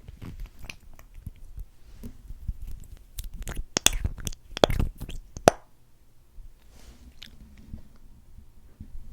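Close-up wet mouth sounds: lip smacks and sticky clicks as lip gloss is put on the lips, clustered and loudest a few seconds in, then fewer and fainter.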